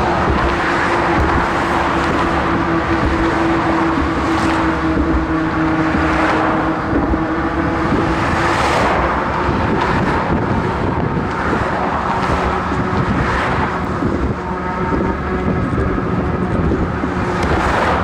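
Road traffic close by: cars passing one after another over a steady rush, each swelling and fading within a couple of seconds. A steady low hum runs underneath through roughly the first half.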